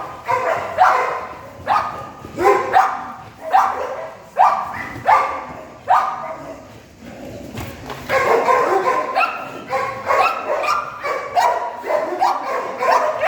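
Dog barking repeatedly, about one bark a second. After a short lull past the middle, the barks come quicker and closer together.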